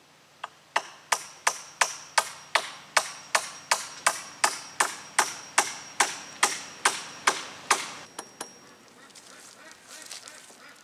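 Hammer driving a nail into a wooden fence rail: about twenty quick, even blows, roughly three a second, with a high metallic ring running under them. A couple of lighter taps follow, then rustling in dry pine needles and leaves near the end.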